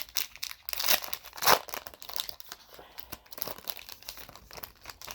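Plastic-foil trading-card pack being torn open and its wrapper crinkled, an irregular run of crackles and rustles that is loudest about one to one and a half seconds in.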